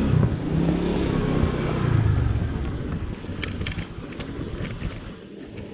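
Motor scooter engine running at low speed as it rolls in to park, its hum dying away about three seconds in, followed by a few light clicks.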